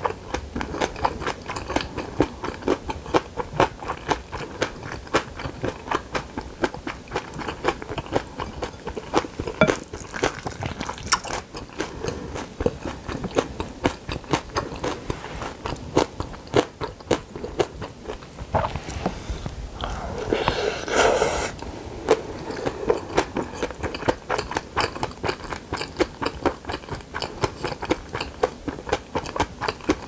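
Close-up chewing of a mouthful of bibimbap with seasoned bean sprouts and julienned raw radish, a steady run of small wet crunches and bites. About twenty seconds in there is a louder burst of noise lasting a couple of seconds.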